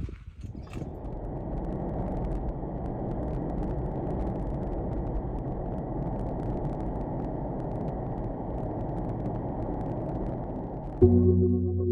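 Steady road and engine rumble of a vehicle on the move, with no clear pitch. Music comes in near the end.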